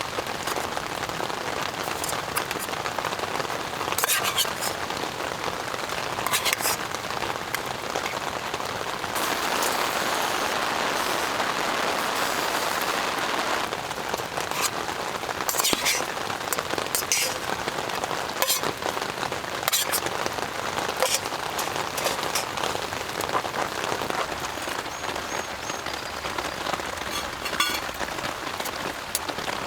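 Heavy rain pouring, with many sharp individual drops striking close by among the steady hiss; it swells a little about ten seconds in.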